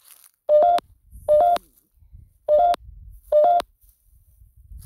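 Short electronic two-step blips from the GhostTube ghost-hunting app playing through a phone speaker, four of them about a second apart, each stepping slightly up in pitch. A faint low rumble lies beneath.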